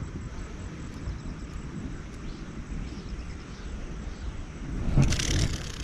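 Outdoor ambience with a steady low rumble, then a brief noisy rustle about five seconds in.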